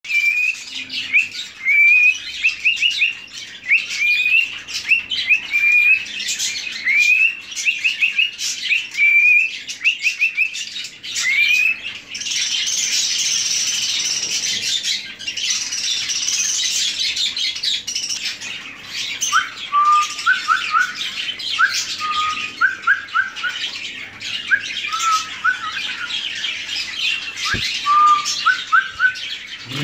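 Lutino cockatiel chirping and whistling in quick, repeated rising notes, turning to a stretch of raspy chatter about halfway through. In the second half a lower series of short rising whistled notes joins in, with sparse chirps above.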